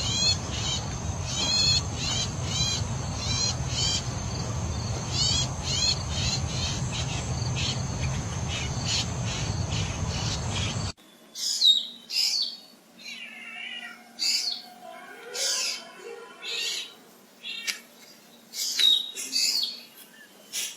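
Birds calling: first a bird repeating short high chirps over a steady background hiss and rumble, then, after an abrupt change about eleven seconds in, a different bird's varied calls and whistles in separate phrases against a quieter background.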